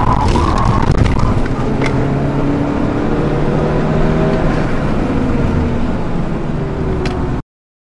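Volkswagen Golf GTI's engine running at fairly steady speed, heard from inside the cabin along with road and wind noise, with a few knocks in the first two seconds. The sound cuts off abruptly near the end.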